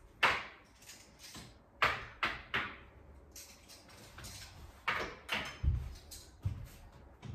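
Tableware being set down on a table: a series of about six sharp clinks and knocks of glasses, plates and cutlery, the first the loudest, with two dull thumps about two-thirds of the way through.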